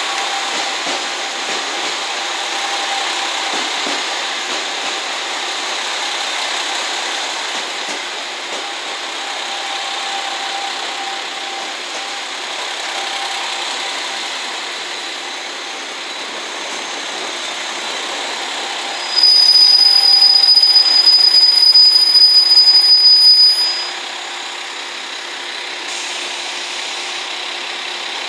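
Steady train noise of a JR Shikoku 2000-series diesel express railcar set running on the next track. About two-thirds of the way through, a loud high steady tone sounds for about five seconds, then stops.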